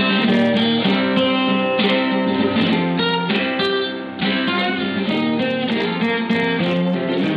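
Background music: a plucked acoustic guitar playing a slow picked melody over chords, with a brief pause and a new phrase about four seconds in.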